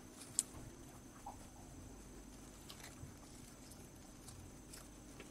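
Mice moving about in a straw and shredded-tissue nest: faint rustling and a few light ticks, with one short high-pitched squeak about half a second in.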